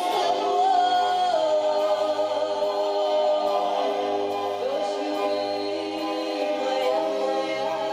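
Women's voices singing a Romani song in long, held notes that glide between pitches, over an accompaniment with a low, pulsing bass.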